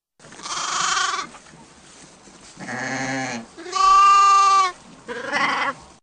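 Sheep bleating four times, about a second apart; the third bleat is the loudest and held at a steady pitch, the second lower-pitched.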